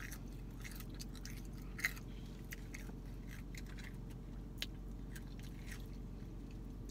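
Close-up chewing of McDonald's French fries, soft wet mouth sounds and small clicks, with a sharper click about two seconds in and another near four and a half seconds. A steady low hum of the car cabin runs underneath.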